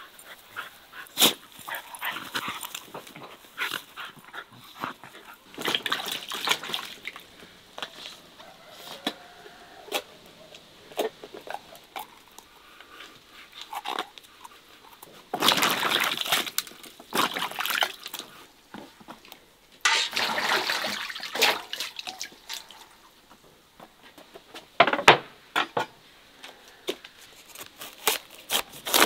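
Close-up sounds of hands peeling and seeding a roasted red pepper: wet squelching and tearing with scattered clicks, and two longer, louder stretches midway. Near the end a knife cuts into a cabbage.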